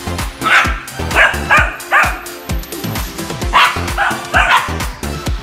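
Background music with a steady beat, over dogs barking in several short bursts.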